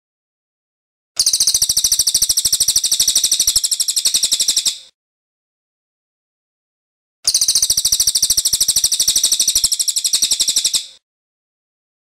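Racket-tailed treepie (cililin) singing two long, fast rattling rolls, each about three and a half seconds, high-pitched, with a silent gap between them.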